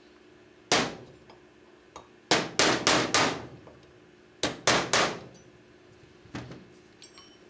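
Hammer striking a steel pin punch to drive a pin out of a small revolver frame: sharp metallic taps with a short ring. A single blow, then a run of four quick blows, then three more, with a lighter tap near the end.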